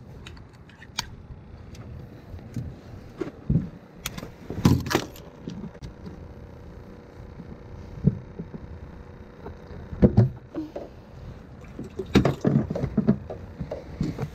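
Scattered knocks, clinks and rattles of fishing gear being handled on the deck of an aluminium War Eagle fishing boat, with a few louder clattering thumps.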